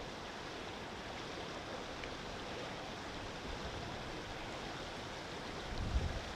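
Steady outdoor wind noise. About five and a half seconds in, gusts begin buffeting the microphone as uneven low rumbles.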